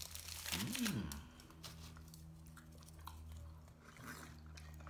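Close-up chewing and biting into a foil-wrapped burrito, with the aluminium foil crinkling; the crackling is loudest in the first second, then thins to scattered faint clicks.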